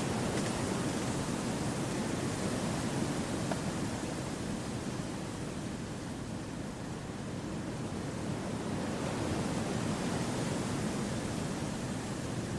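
Wind blowing steadily through forest trees, a continuous rushing noise that swells and eases gently.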